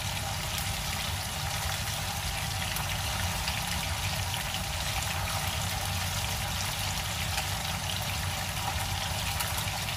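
Fish head pieces frying in oil in a pan, giving a steady sizzle and bubbling, with a steady low hum underneath.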